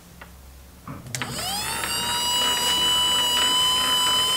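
Two-speed windscreen wiper motor, run through a variable speed controller and geared to a lathe leadscrew, switched on about a second in with a click. It spins up with a rising whine, then runs at a steady high whine.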